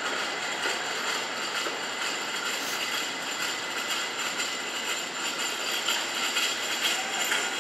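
Low-floor electric streetcar approaching along street track, a steady running noise with a thin, steady high tone above it.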